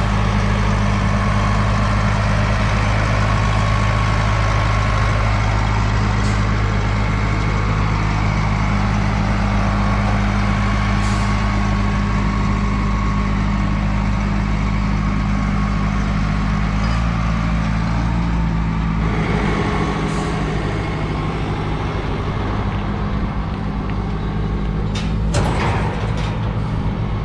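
Large Cat wheel loader's diesel engine running steadily under load as it tows a heavy trailer. Its engine note shifts about two-thirds of the way through and then grows weaker. There are a couple of short sharp sounds near the end.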